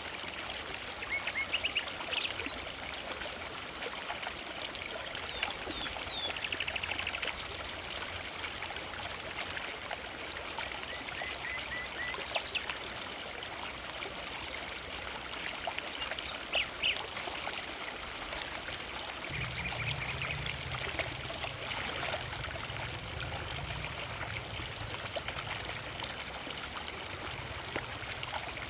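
Forest river flowing steadily, with short bird chirps and a brief trill now and then. A low rumble joins about two-thirds of the way in.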